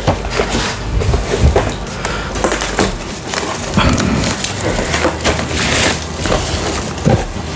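Cardboard shipping box and bubble wrap handled by hand: continuous crackling, scraping and rustling as kit boxes are lifted out of the torn-open carton.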